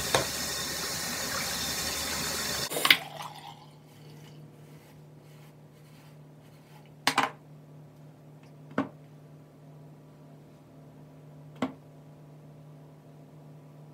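Bathroom tap running steadily, then shut off about three seconds in with a sharp clunk. After that a low steady hum remains, broken by a few scattered clicks and knocks.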